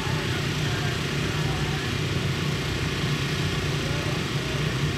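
Drag-race car engines idling steadily, with no revving or launch.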